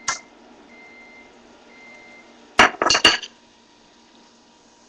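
Three short faint electronic beeps about a second apart, typical of a microwave oven ending its cycle, then a loud quick clatter of dishes, sharp clinks with a brief ring, about two and a half seconds in.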